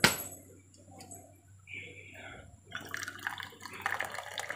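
A sharp metal clink as a steel tumbler is picked up off a concrete floor, then hot tea poured from a steel flask into the steel tumbler, trickling and splashing in the last couple of seconds.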